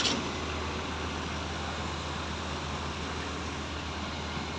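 Heavy construction machinery engines running steadily, a constant low drone with a hum underneath.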